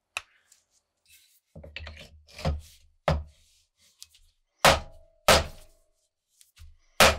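A knife blade scraping along a wooden hatchet handle, then the handle's butt knocked hard on a wooden workbench several times to seat the steel head of a Van Camp hewing hatchet. Most knocks carry a short ring from the steel head.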